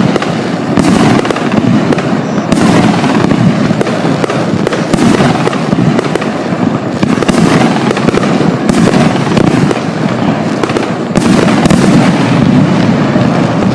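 Fireworks battery (Hestia HE9600 Crown, 29 shots in 38 and 47 mm calibre) firing shot after shot. Sharp reports come about every one to two seconds over a continuous loud din.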